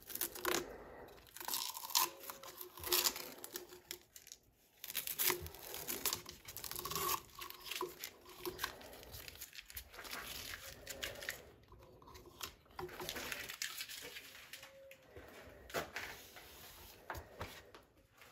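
Tape and plastic film being peeled and torn off by hand, in a run of irregular rips and crinkles.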